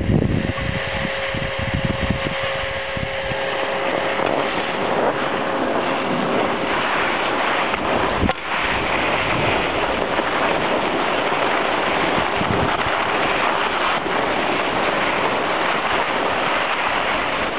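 Steady rushing wind noise on the camcorder microphone as the camera is carried down the ski slope, mixed with the hiss of skis sliding over packed snow. There is a single knock about eight seconds in.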